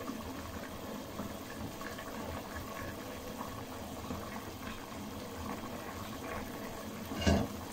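A pot of thin chicken and chana dal curry bubbling at a steady boil, with a ladle scooping and pouring the curry back in. A short knock sounds near the end.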